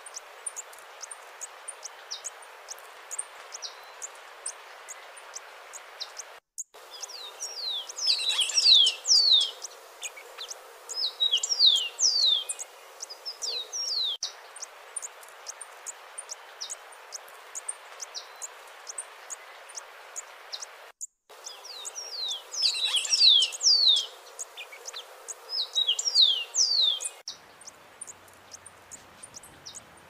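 White-throated mountain-gem hummingbird song: two bouts of rapid, high notes that slide downward, each bout in two quick runs. Between them come thin, scattered high ticks and chirps over a steady hiss.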